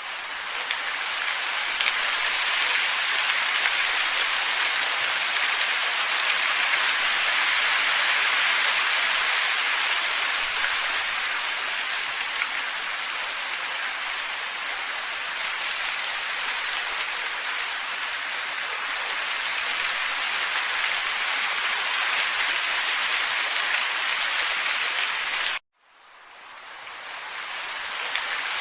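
Steady, even rushing wind noise, more hiss than low rumble. It cuts out abruptly a few seconds before the end, then fades back in over about two seconds.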